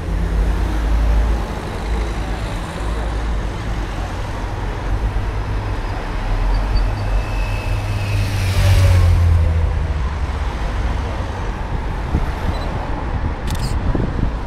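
Race convoy vehicles (cars and a motorcycle) driving past close by, engines and tyre noise over a steady low rumble. One car's pass-by is loudest about nine seconds in, and a brief sharp click comes near the end.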